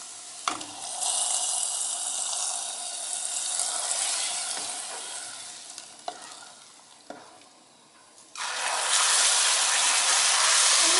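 Hot garlic and dried coriander fried in oil or ghee (Egyptian tasha), poured from a frying pan into molokhia. It hisses loudly, then slowly dies away, with a few clinks of the pan against the pot. Near the end a second loud sizzle starts suddenly as the hot pan meets the molokhia again.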